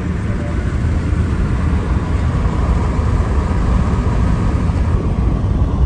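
Steady low rumble of a car driving, tyre and engine noise heard from inside the cabin, with a faint even hum above it.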